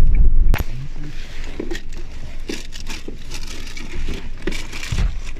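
A car's low driving rumble stops abruptly with a sharp click about half a second in. After it come scattered small clicks and crinkly rustling.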